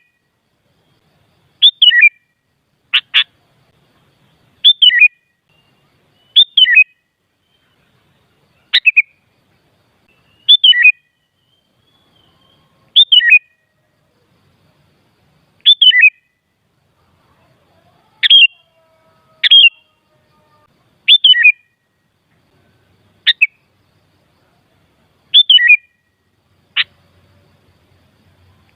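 Sooty-headed bulbul (kutilang) calling: short, quick phrases that fall in pitch, repeated every couple of seconds, with a few single sharp notes between, and silence in the gaps.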